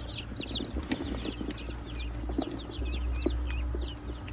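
A group of baby chicks peeping: many short, high chirps, several a second and overlapping, over a steady low rumble.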